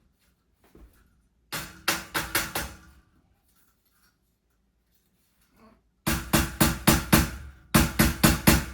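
Small mallet striking aluminium cage tiers to knock them together: three quick runs of four to six knocks, the first about a second and a half in, the other two near the end.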